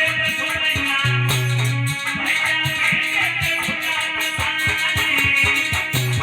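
Instrumental band music with a plucked-string lead line over a steady beat of drums and repeated bass notes.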